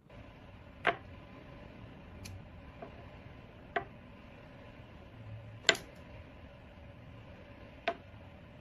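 A wood lathe running with a steady hum, broken by four sharp clicks spread across several seconds and a couple of fainter ones.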